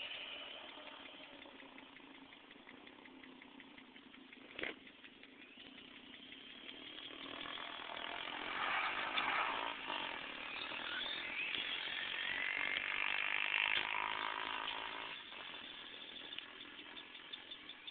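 Brushless electric motor of a Traxxas Slash VXL RC truck whining and gliding up and down in pitch as the throttle goes on and off. It grows louder from about seven seconds in and fades near the end. There is one sharp click about five seconds in.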